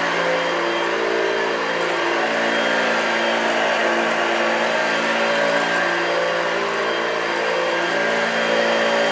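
1982 Hoover Junior U1104 upright vacuum cleaner running steadily, a motor hum with a whine over a broad rushing noise.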